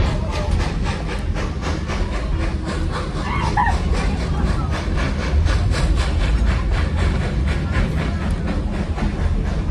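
Heritage passenger train car rolling along the track, heard from inside its open-sided car: a steady low rumble with a rapid, continuous clickety-clack rattle of the wheels and car.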